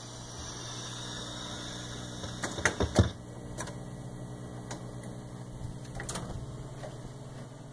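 1940 Wurlitzer 700 jukebox's record changer cycling after a record ends: a steady motor hum, with a cluster of mechanical clunks about two and a half seconds in, then lighter clicks every second or so as the record is taken off the turntable and returned to the stack.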